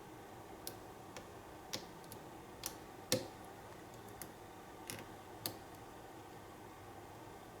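Faint, irregular small clicks from the pins of an American 1100 padlock being single-pin picked with a hook pick, its serrated pins clicking as they are lifted and set. About nine clicks come unevenly over the first five seconds or so, the loudest a little after three seconds in.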